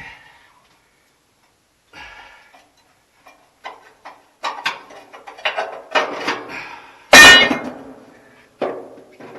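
Metal clinks and knocks from tools being handled against metal, building to a single loud, ringing metal clang about seven seconds in and one more knock near the end.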